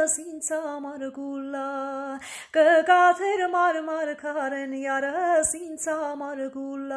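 A woman singing an Armenian song unaccompanied, holding long wavering notes, with quick breaths between phrases.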